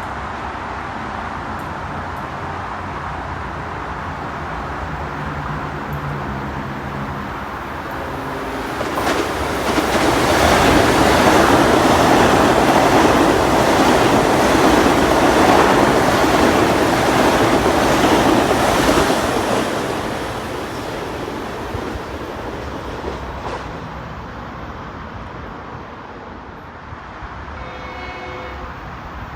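A train passing: its rail noise swells about eight seconds in, stays loud for some ten seconds with faint wheel clicks, then fades away.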